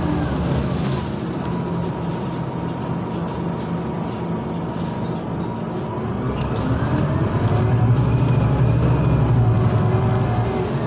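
Scania CityWide LF 18 articulated bus's natural-gas engine heard from inside the cabin while driving, a steady drone. About six seconds in it pulls harder, rising in pitch and getting louder for a few seconds.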